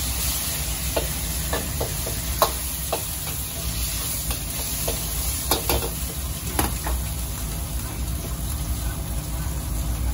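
Egg sizzling in a carbon-steel wok over a gas burner, with a metal wok ladle scraping and clanking against the wok, sharp clanks coming every second or so for the first seven seconds, then stopping. A steady low rumble runs underneath.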